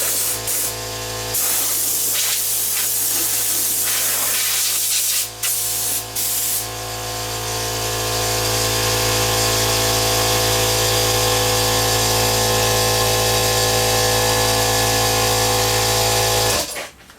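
Compressed air hissing from an air blow gun, first in short bursts with brief gaps and then in one long steady blast, over the steady hum of an electric air compressor running. Both cut off suddenly near the end as the compressor trips the circuit breaker.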